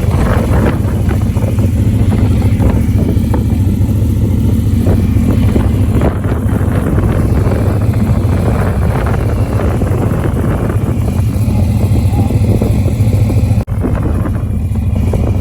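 Car driving: a steady low engine and road drone with rushing noise over it, cutting out for an instant near the end.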